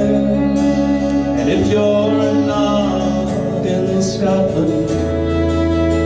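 Live folk song: a man singing at the microphone over steady instrumental accompaniment with a changing bass line.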